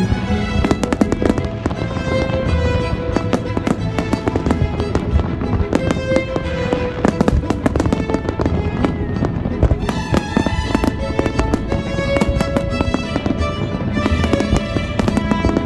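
Aerial fireworks bursting, with many sharp bangs and crackles, over music with long held melodic notes.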